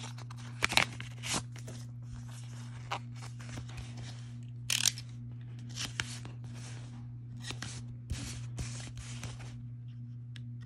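Utility knife blade cutting along the edge of a cardboard mailer in short, irregular rasping strokes, with the card scraping and tearing as it opens.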